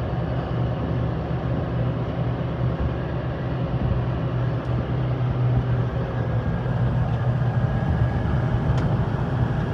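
Farm tractor engine running steadily with a low, even drone.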